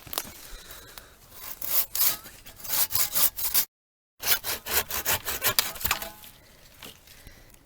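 Hand saw cutting through firewood, with quick back-and-forth rasping strokes in two runs and a short break between them.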